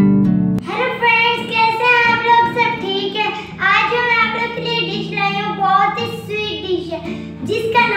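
A young girl singing alone, her voice bright and high; acoustic guitar music cuts off about half a second in, just before she begins.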